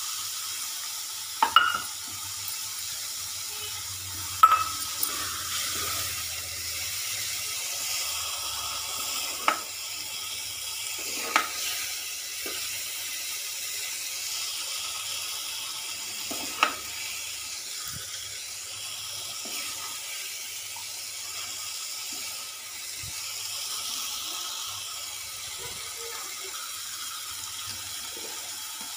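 Vegetables with green peas sizzling in a nonstick kadai as a spatula stirs them, with about five sharp knocks of the spatula against the pan, the loudest in the first five seconds.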